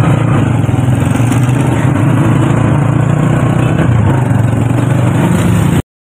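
Motorcycle engine running steadily while riding through street traffic, with wind and road noise. The sound cuts off suddenly near the end.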